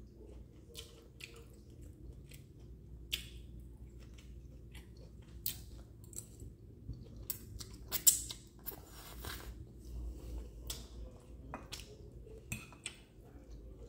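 A person chewing and eating spaghetti, with scattered clicks and scrapes of a metal fork on a plate; the sharpest click comes about eight seconds in.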